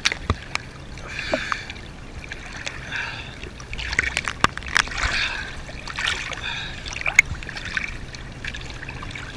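Sea water splashing and sloshing right at the microphone, with many sharp clicks and spatters of water striking the camera, busiest a few seconds in.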